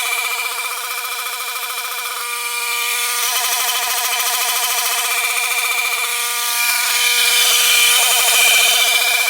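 Small petrol engine of a grass cutter running steadily at working speed while crushing plant stems, its pitch wavering slightly and its sound easing off briefly twice.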